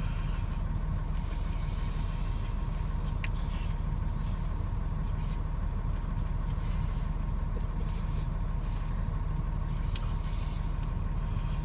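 Steady low rumble of a running vehicle engine, with a faint steady whine above it and a few faint clicks.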